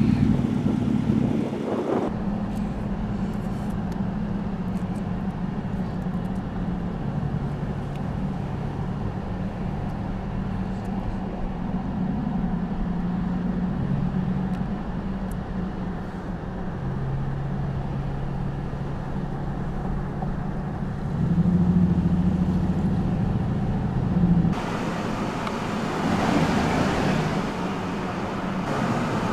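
Engine and tyre noise heard from inside a moving vehicle, the engine's low note shifting up and down in steps. Near the end it gives way to a louder rush of wind and road noise.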